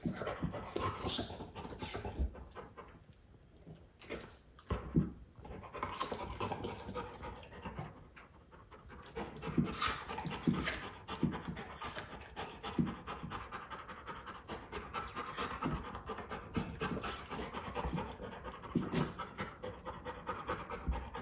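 Golden retriever panting from the exertion of ball play, the panting easing off briefly a couple of times.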